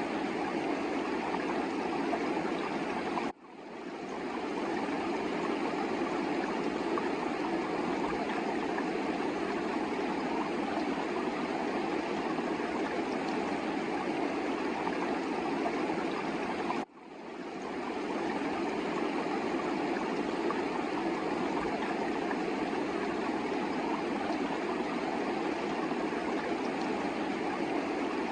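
Himalayan mountain river rushing steadily, a continuous wash of flowing water. It drops out for an instant twice and swells back each time.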